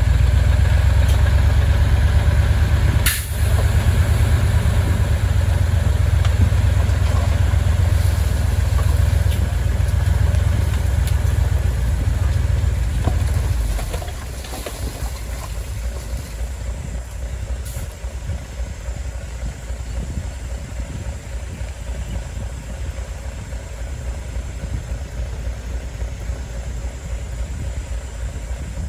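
Heavy construction-machine diesel engine running with a deep, steady rumble that drops noticeably quieter about halfway through and carries on at the lower level. A single sharp knock sounds about three seconds in.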